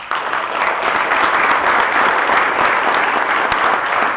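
Audience applauding: many hands clapping at once, loud and steady.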